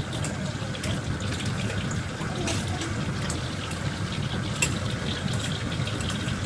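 Water boiling hard in a stainless-steel saucepan, a steady bubbling, with a few light clinks of a metal slotted ladle against the pot as red chilies blanch and are scooped out.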